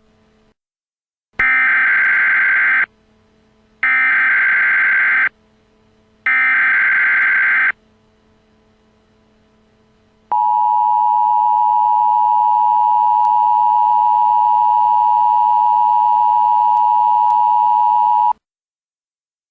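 Emergency Alert System alert opening: three short bursts of shrill warbling SAME header data tones, each about a second and a half long with a pause between, then the steady two-note EAS attention signal, held for about eight seconds before it cuts off.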